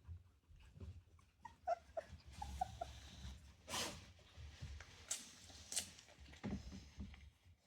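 Three-week-old Rottweiler puppies whimpering in a run of short, high squeaks, with a brief rustle and a few light knocks from the puppies moving about.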